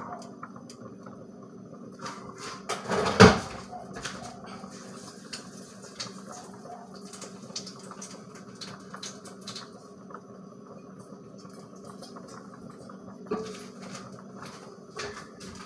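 Metal cookware clattering in a kitchen: one loud clank about three seconds in, then scattered light clinks and knocks, over a steady low hum.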